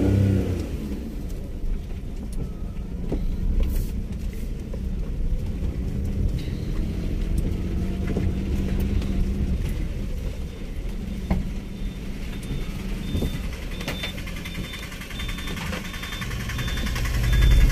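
Car engine and tyres on a wet road, heard from inside the cabin as a steady low rumble. Over the last few seconds a faint high beep repeats about twice a second.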